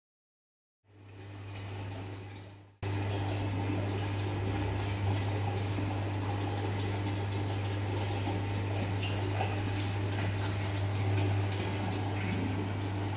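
Aquarium circulation pump humming steadily under the rush of running water. The sound fades in about a second in and jumps louder about three seconds in.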